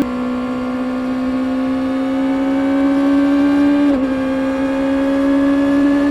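Stock 2024 Kawasaki Ninja ZX-6R's 636cc inline-four running at high revs through its stock exhaust. It gives a steady, high-pitched note that climbs slowly, with a brief dip in pitch about four seconds in.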